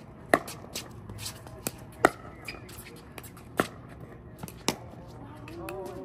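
Pickleball rally: paddles hitting the plastic ball with sharp pops, four loud hits roughly a second to a second and a half apart, with fainter taps between them. A faint voice comes in near the end.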